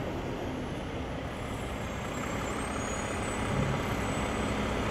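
Garbage truck's engine running steadily at the curb, a low even rumble with street traffic noise.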